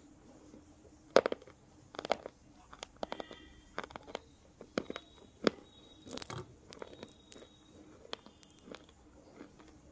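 A slate pencil being bitten and crunched between the teeth, then chewed: a run of sharp, brittle crunches and snaps, the loudest about a second in.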